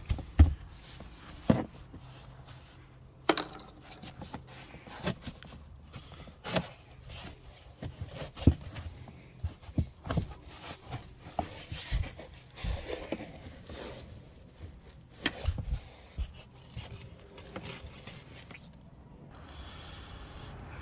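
Irregular clicks, knocks and scrapes of a rear seat fold latch and its plastic trim being pried and pulled loose by hand.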